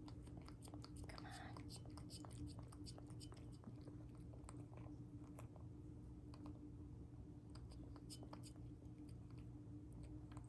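A cat eating its breakfast: faint, irregular clicks and smacks of chewing, over a steady low hum.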